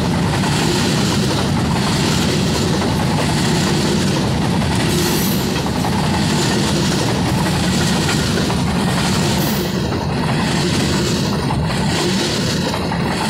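Freight train of covered hopper wagons rolling past close by: a steady heavy rumble of steel wheels on the rails, with the clatter of wheelsets passing over the rail joints.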